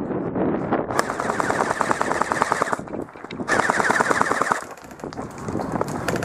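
Electric airsoft rifle, a JG G36C, firing two full-auto bursts of rapid, evenly spaced shots. The first lasts about two seconds, starting about a second in, and the second is shorter, about a second long.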